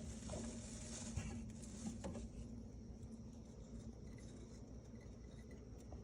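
Faint rustling and a few small taps from a pet hamster moving about, mostly in the first two seconds, over a low steady hum.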